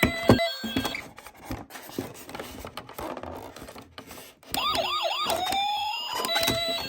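Toy ambulance's electronic siren sounding from about four and a half seconds in: three quick wails, then one long rising wail, ending with a knock. Before it, a couple of sharp knocks and a stretch of small clicks and rattles.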